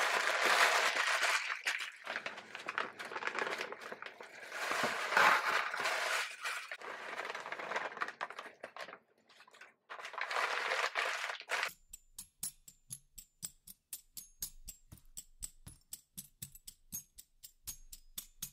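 Sheet of paper crumpled and rustled in noisy bursts, with crackles, as dog treats are wrapped up in it. About twelve seconds in it cuts off abruptly and background music with a fast, even ticking beat takes over.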